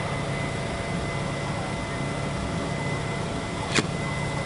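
Steady drone of running machinery, with a constant low hum and a thin high whine. One sharp click comes near the end.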